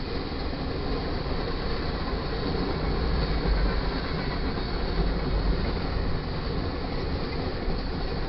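Freight cars of a passing manifest train rolling by at speed: a steady rumble and rush of steel wheels on rail.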